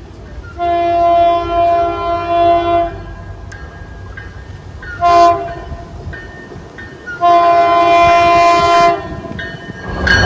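MBTA commuter rail train sounding its multi-note air horn as it approaches: one long blast, one short and another long. Near the end the train's rumble rises quickly as it reaches the platform.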